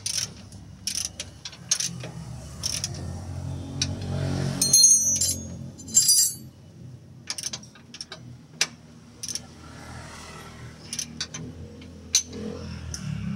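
Metal hand tools and parts clinking and knocking in irregular clicks, with two brief ringing metallic clinks about five and six seconds in, over a low steady hum that swells briefly around four seconds in.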